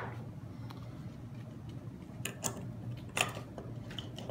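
A few light metallic clicks from Sturmey-Archer C30 internal gear hub parts as the gear ring assembly is handled and set down over the axle and planet cage. The clearest click comes about three seconds in.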